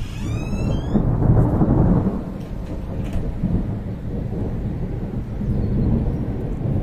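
Thunder rumbling low and long, swelling to its loudest about one to two seconds in and then rolling on more evenly.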